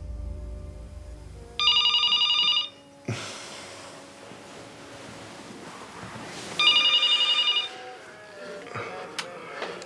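Corded desk telephone ringing twice, each ring about a second long with a fast trill, the two rings about five seconds apart.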